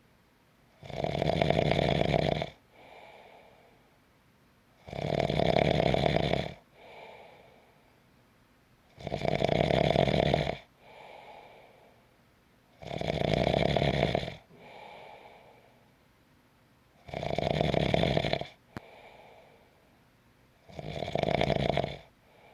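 A person snoring in sleep: six loud snores about every four seconds, each followed by a short, much quieter breath.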